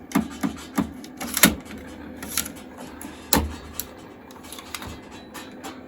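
A string of irregular plastic clicks and knocks as the iMac G3's CD drive tray is pushed and worked by hand but will not go in, the loudest knocks about one and a half and three and a half seconds in.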